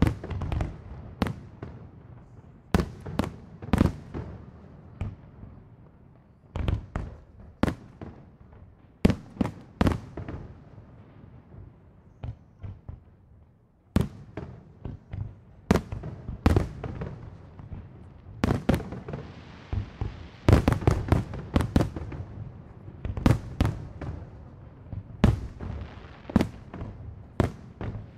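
Aerial fireworks shells bursting in an irregular string of sharp booms, some single and some in quick clusters, with low rumbling between them. There is a lull of smaller pops about halfway through and a dense barrage about two-thirds of the way in.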